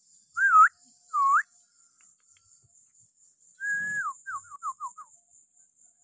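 Piping crow giving clear whistled calls: two short wavering whistles, then about three and a half seconds in a longer held whistle that drops in pitch, followed by a quick run of four short falling notes.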